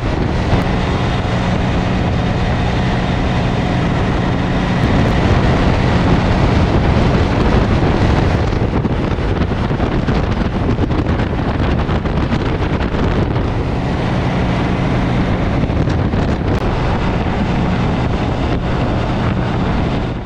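Motorcycle riding at road speed: heavy wind noise on the microphone over the steady drone of the engine, which sinks under the wind in the middle and comes back near the end.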